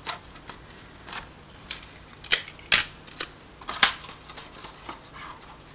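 Stiff clear plastic transparency sheet being handled, rolled into a cylinder and taped, giving scattered sharp clicks and crackles, the loudest a little after two seconds and again near four seconds.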